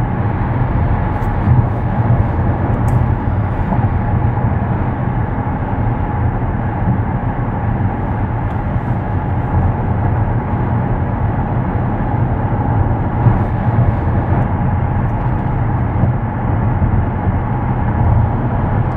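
Steady road and wind noise inside the cabin of a Tesla Model X Plaid electric SUV cruising on a highway at about 65 mph.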